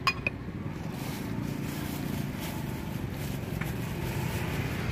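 Steady low rumble of passing road traffic. Right at the start come two quick clinks of crockery as bowls are handled.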